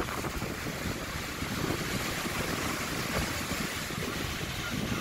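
Sea surf washing onto a rocky, pebbly shore, mixed with wind buffeting the microphone in a steady rumbling hiss.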